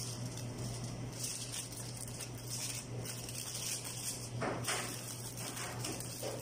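Aluminium foil crinkling and rustling in patches as it is pressed and crimped around the edges of a baking tray, with a couple of sharper crackles about four and six seconds in, over a steady low hum.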